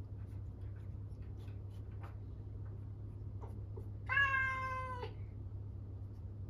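Norwegian Forest Cat giving one loud, drawn-out meow, about a second long, about four seconds in, pitch falling slightly: a lonely call for its owner, who has gone out of the room.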